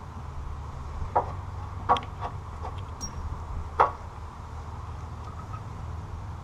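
Parts and tools being handled during a truck shock absorber swap: about five short knocks and clicks, the loudest just under four seconds in, over a steady low hum.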